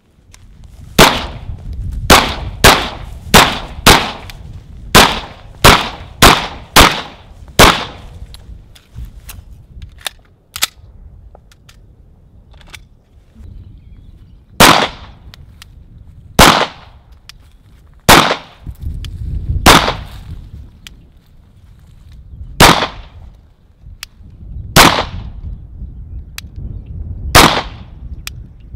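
Semi-automatic pistol fired in a quick string of about ten shots, then a slower run of single shots a second and a half to three seconds apart.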